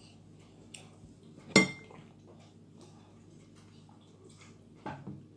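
A single sharp clink of tableware about a second and a half in, ringing briefly. Two softer knocks follow near the end.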